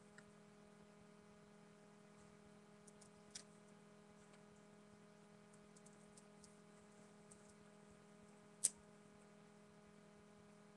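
Near silence: a steady low electrical hum, with a small click about a third of the way in and one sharper click about eight seconds in.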